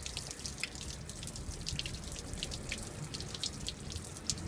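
Dirty water running out of a flexibag, spattering and dripping with many quick splashes.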